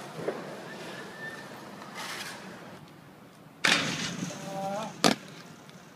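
Skateboard on concrete: a sudden loud rush of wheel noise about three and a half seconds in as the skater goes off the ledge, then a single sharp clack of the board landing about a second later, with a brief shout just before it.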